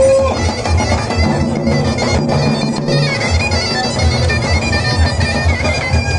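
Davul and zurna playing a horon dance tune: the zurna's reedy melody held over regular davul bass beats. The drum drops out for about a second near the middle, then comes back in.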